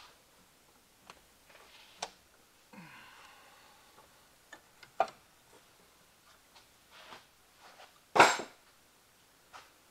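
Scattered clicks and knocks of hand tools and metal parts being handled in a car's engine bay, with one loud clatter a little after eight seconds in.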